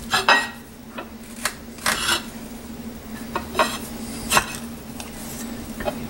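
Kitchen knife being worked through the hard rind of a spaghetti squash, with a handful of separate clicks and scrapes as the blade and the squash knock and rub against the plate beneath.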